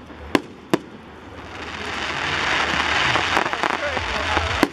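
Fireworks: two sharp bangs in the first second, then a dense hiss of many small pops that swells for about three seconds, and another bang near the end.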